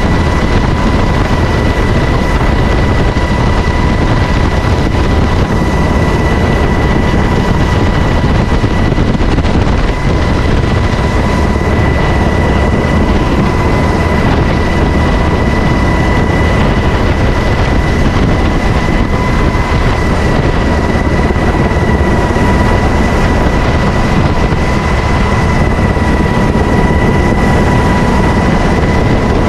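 Helicopter heard from aboard in flight: a loud, steady rush of rotor and engine noise with a constant high whine over it.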